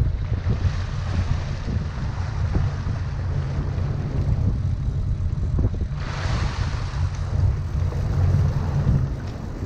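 A boat's engine running with a steady low rumble, under wind on the microphone and water splashing against the hull. A hooked tuna thrashing at the surface beside the boat churns the water, with a louder rush of splashing about six seconds in.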